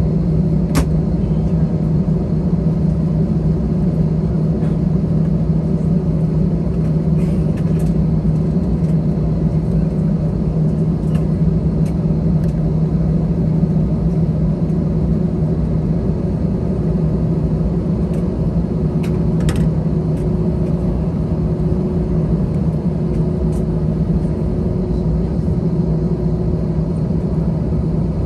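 Steady low rumble and hum inside the cabin of an Airbus A321 on the ground, from its engines and air systems, with a couple of faint clicks.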